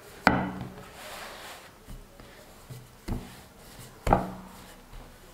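Long wooden rolling pin working dough on a floured wooden board: a soft rubbing as it rolls, with several sharp wooden knocks as the pin meets the board, the loudest about four seconds in.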